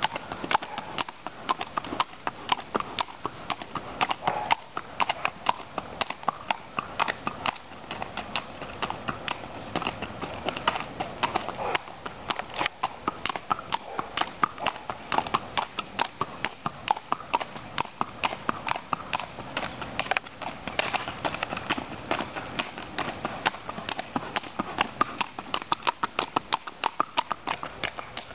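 Hoofbeats of a Missouri Fox Trotter mare fox-trotting on a paved road: a steady, rhythmic clip-clop of hooves striking the asphalt in the gait's four-beat pattern.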